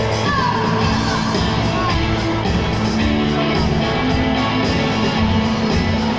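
Live pop-rock band playing through a stadium PA, with a woman singing.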